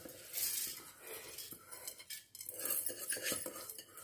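Soaked rice being tipped and scraped from a metal bowl into a steel mixer-grinder jar, with irregular scraping and small clinks of metal against metal.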